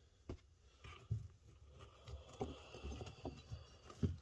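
Scattered light knocks and clicks of hands handling tools and metal parts, with a few louder taps about a second in, midway and near the end.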